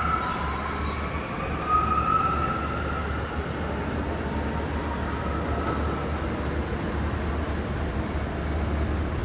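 New York City subway train running through the station: a steady low rumble with a high whine that dips and rises in pitch in the first few seconds, then fades.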